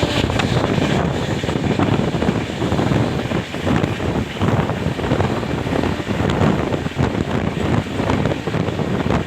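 A train running close by: a continuous heavy rumble with irregular flutter, and wind buffeting the microphone.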